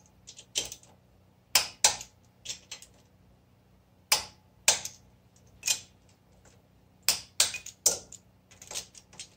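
Click-type torque wrench on the nuts of a BMW R90/6 cylinder head, clicking as the nuts are brought back to torque, with ratchet clicks in between. About a dozen sharp metallic clicks at irregular intervals.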